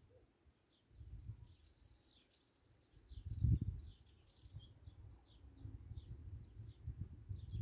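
Small birds chirping in quick, repeated short notes over an irregular low rumble that swells about three and a half seconds in.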